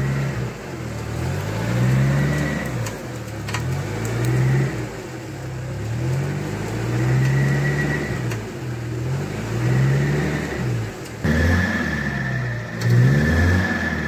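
UAZ-452 van's engine revving up and down in repeated swells, about every second and a half, as the stuck van strains to pull itself out of boggy ground on its winch cable. A thin high whine comes and goes over the engine.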